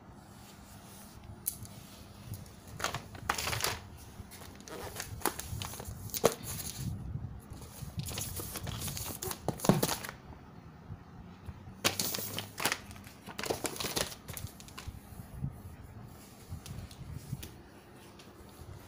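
Gift-wrapping paper on wrapped presents crinkling and rustling in irregular bursts as the packages are handled and moved.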